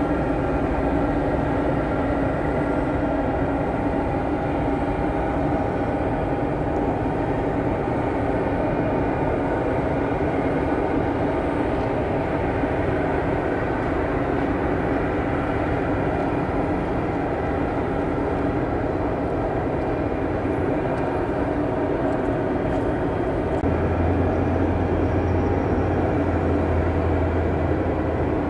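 Steady whine and rumble of a jet airliner on the apron while it is pushed back by a tug, several held tones over a constant hiss; a low hum joins near the end.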